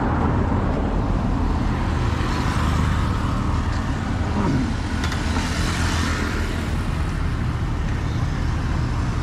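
Road traffic on a busy street, a steady run of car and motorbike engines and tyre noise, with one vehicle rushing past a little after the middle.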